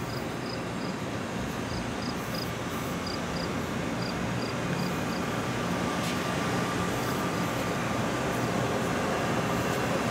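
Laid-over Arrow III electric multiple-unit commuter train sitting at the platform, its onboard equipment and ventilation giving a steady hum that grows slightly louder. Short, high chirps repeat in small groups through the first half.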